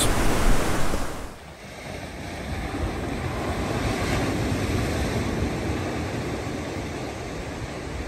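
Sea surf breaking and washing up a beach, a steady rush of waves. For about the first second wind buffets the microphone and the sound is louder, then it drops to a softer, even wash.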